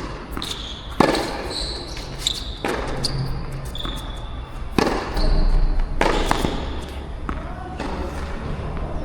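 Tennis rally: a racket strikes the ball about four times, one to two seconds apart, with short high squeaks between the strokes. A low rumble of wind on the microphone runs underneath.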